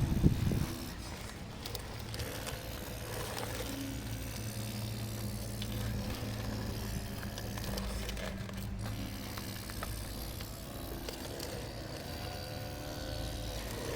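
Radio-controlled model excavator working, its motor giving a steady hum with a louder knock right at the start.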